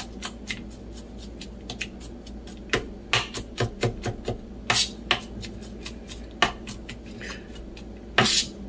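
Kitchen knife chopping garlic cloves on a plastic cutting board: a run of irregular sharp taps, quicker about three seconds in, with the loudest strikes near the end.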